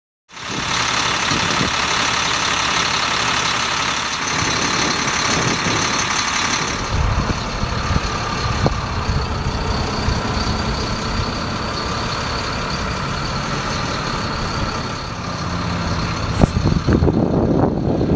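Terex Commander 4047 digger derrick on a Ford F750 truck running with its boom being raised: the truck engine and the derrick's hydraulics, with a steady high whine over the running. A few sharp knocks come near the end.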